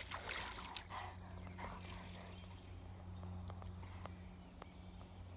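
A Rottweiler's paws stepping and splashing lightly in a muddy puddle: faint splashing in the first second, then a few scattered soft taps and squelches, over a low steady hum.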